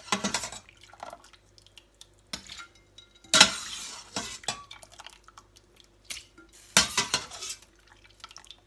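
A metal utensil clattering and knocking against a cooking pot: three loud clatters about three seconds apart, with lighter knocks in between.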